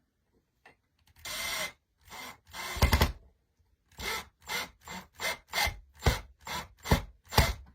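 A small screw being driven into a wooden breadboard, making scraping strokes. There are a couple of longer strokes, then a quick run of short ones, about two or three a second.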